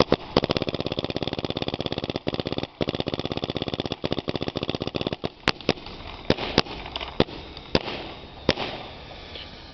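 Blue Angel electropneumatic paintball marker with a Tadao M6 board firing in PSP ramping mode, uncapped: a fast, even string of shots for about five seconds with a brief break, then slowing to seven scattered single shots.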